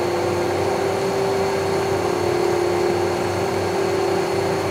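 Extrema EP-216 top and bottom planer running with no stock, its feed set to a fast gearbox speed: a steady machine drone with a strong, unchanging whine over it.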